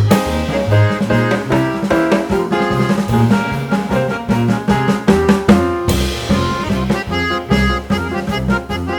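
Background music with a steady drum-kit beat, bass and pitched instrument notes.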